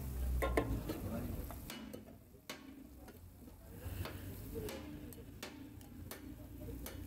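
Scattered light clicks and taps of metal cookware over a low steady hum.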